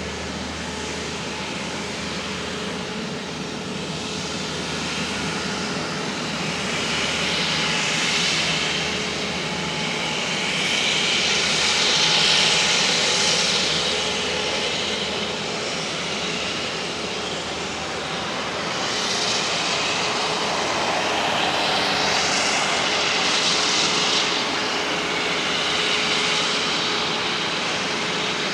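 Jet airliner engines running, the noise swelling and easing several times, with a faint steady whine underneath.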